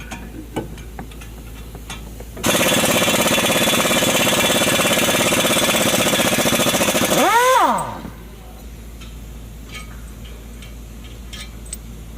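Impact wrench hammering for about five seconds, starting a couple of seconds in, then a short whine rising and falling as it stops. Light clinks of metal tools come before and after.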